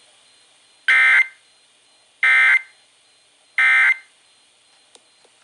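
Emergency Alert System SAME end-of-message signal: three short bursts of warbling data tones, evenly spaced, marking the end of the alert. Two faint clicks follow near the end.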